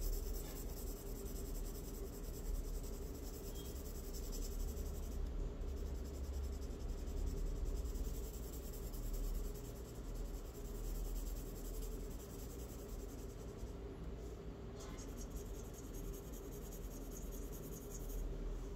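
Charcoal pencil scratching across drawing paper in drawing strokes, over a low steady hum.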